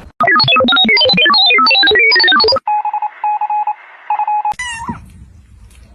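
A fast run of loud electronic beeping notes that jump up and down in pitch, then three short bursts of a trilling phone-like ring. A short falling cry follows near the end.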